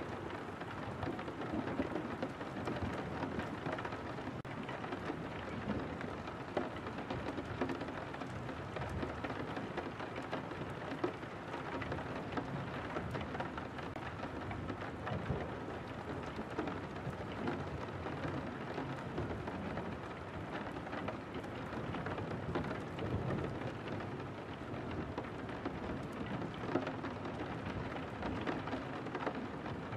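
Steady rain on a window: a dense, even patter of drops with no let-up.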